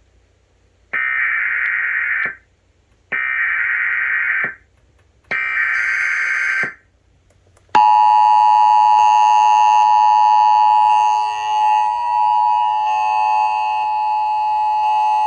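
Emergency Alert System header: three short bursts of SAME digital data tones, each a little over a second long, then the EAS two-tone attention signal (853 and 960 Hz). The attention signal starts about eight seconds in and holds steady. This sequence announces the start of a new emergency alert broadcast.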